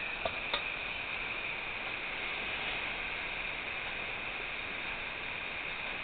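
Homemade alcohol stove made from a Seafoam can, its jets burning with a steady hiss under a steel cup of water. Two light metal clicks come just after the start as the cup is set down on the stove.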